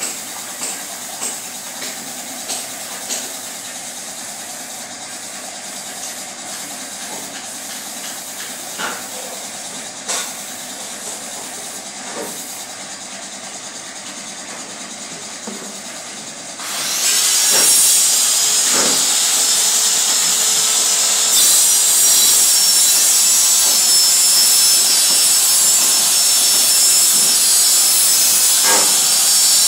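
Hose-fed paint spray gun: a quieter steady air hiss with scattered clicks and knocks at first, then a little past halfway the gun is triggered and a loud, steady spraying hiss starts suddenly and runs on.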